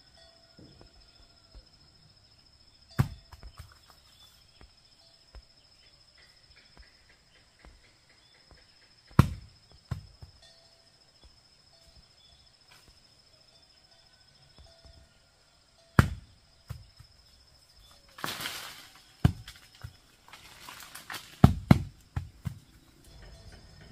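Sharp knocks or thuds every few seconds, with a burst of rustling near the end, over a steady high-pitched insect drone.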